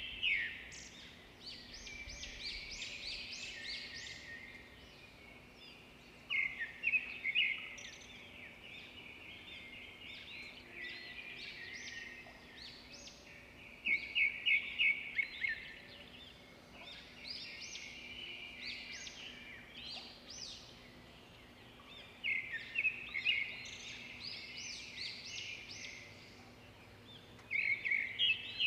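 Small birds chirping: loud bursts of rapid, twittering notes come about every seven seconds, with softer chirping between, over a faint steady hum.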